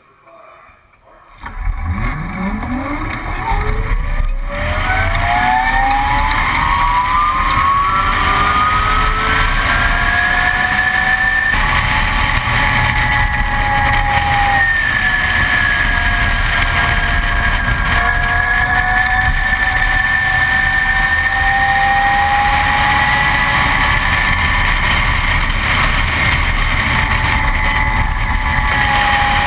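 Onboard sound of a 2012 Zero S ZF9 electric motorcycle racing: it pulls away from a standstill about a second and a half in, and its electric motor's whine climbs smoothly in pitch for about ten seconds as it accelerates, then holds high, dipping slightly in the middle and rising again. Steady wind and road rush run under the whine.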